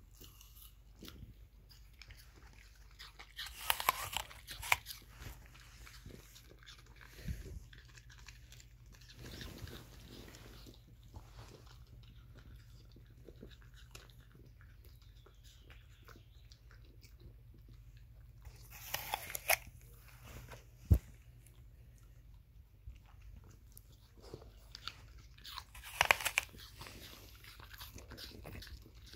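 West Highland White Terriers biting into and crunching pieces of apple, in three short bursts of crisp crunching with quieter chewing between and one sharp click partway through.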